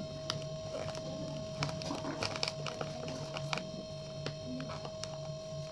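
A pen scratching and tapping as it writes on a plastic-wrapped package, struggling to mark the plastic, heard as small irregular scratches and clicks over a steady low hum.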